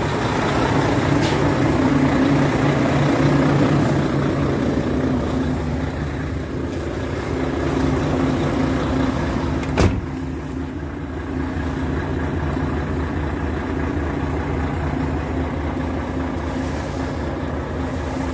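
Volvo FH500 truck's 13-litre six-cylinder diesel engine running steadily, with one sharp knock about ten seconds in.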